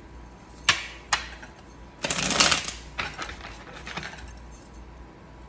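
A deck of oracle cards being handled on a table: a few sharp taps and clicks, with a brief rapid flurry of shuffling about two seconds in, the loudest part.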